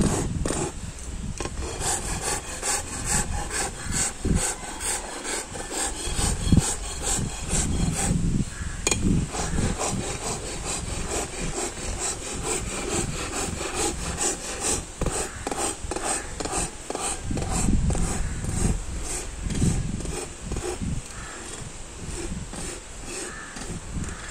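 Farrier's hoof rasp filing a horse's hoof in repeated back-and-forth scraping strokes, rasping the hoof while shoeing.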